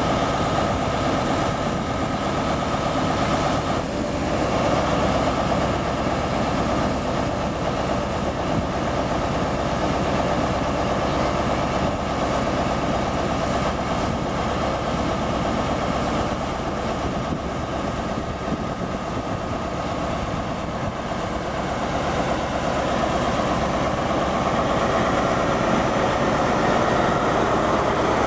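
Class 43 HST power car's diesel engine running steadily, with its engine note changing about four seconds in, then louder near the end as the train pulls away and its coaches roll past.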